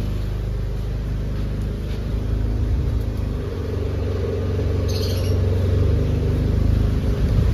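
Nissan Sentra engine idling steadily, running with the blower fan on full as an electrical load, its rumble growing a little louder past the middle. A brief bird chirp comes about five seconds in.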